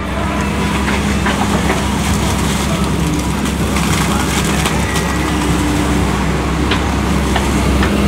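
Tracked excavator's diesel engine running steadily as it digs out wet mud, with occasional short clicks and knocks.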